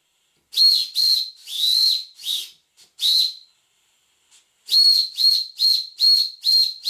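Steam whistle on a Wilesco D20 model steam engine's boiler, blown in short high-pitched toots by pressing its lever valve, each toot carrying a hiss of steam. Five toots of uneven length, a pause of over a second, then a quick run of about six toots, two or three a second.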